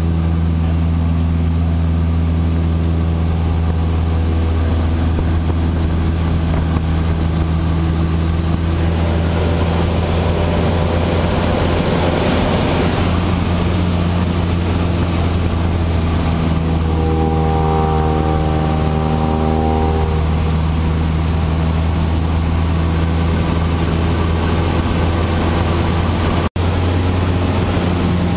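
Cessna Aerobat's piston engine and propeller droning steadily, heard inside the cabin. A rushing noise swells and fades around the middle, a higher tone sounds for a couple of seconds a little later, and the sound cuts out for an instant near the end.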